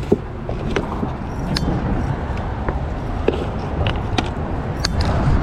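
Scattered clicks and light knocks of a bait bucket being handled, over a steady low rumble.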